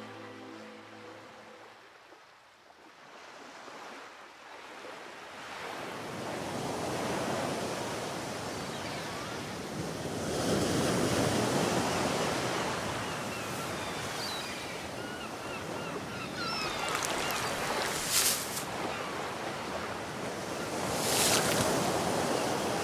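Ocean waves washing in, a steady surf hiss that swells up after music fades out at the start, with two sharper surges near the end.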